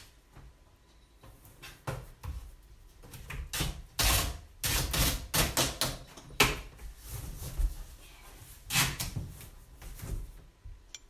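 Packing tape being pulled off its roll in short, irregular rips and pressed onto a cardboard box, with knocks on the cardboard.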